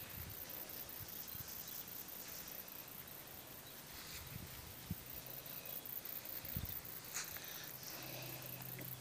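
Quiet outdoor ambience with faint, scattered rustling as a five-week-old Rottweiler puppy moves about in the grass. A faint low steady hum sits underneath and grows a little near the end.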